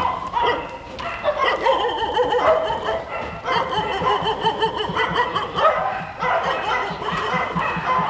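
Many shelter dogs barking and yipping at once, their calls overlapping into a continuous din.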